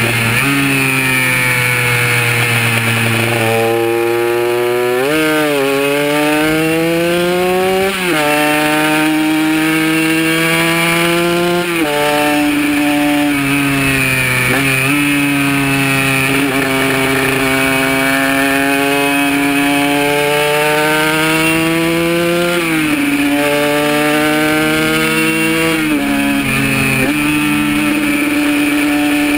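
Kawasaki KR150 single-cylinder two-stroke engine running hard on track, its pitch climbing through each gear and dropping suddenly at each shift, several times over.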